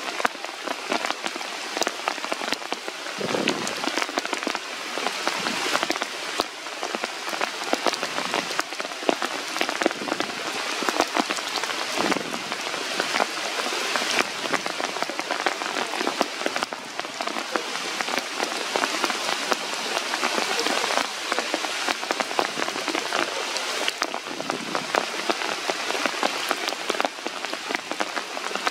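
Steady rain falling on a forest canopy, with a dense patter of individual drops striking the leaves.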